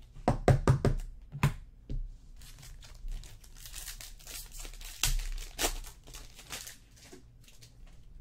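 2014 Panini Select football cards being handled by hand: a quick run of about five knocks at the start, one more shortly after, then cards sliding and rustling against each other with a crinkly sound for several seconds.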